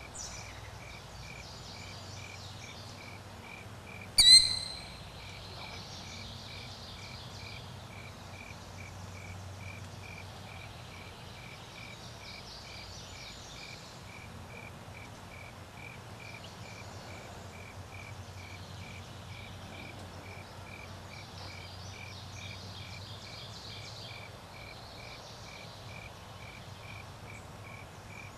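Crickets chirping steadily, a regular train of short high pulses, with faint bird chirps in the background. About four seconds in, a single loud, sharp high bird call cuts through briefly.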